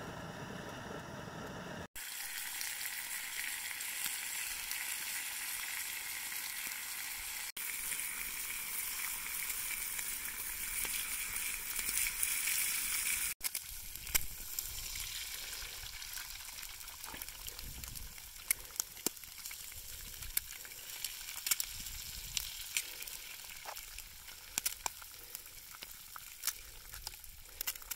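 Eggs frying in a hot square pan: a steady sizzle with scattered sharp pops and crackles, broken by a few sudden cuts.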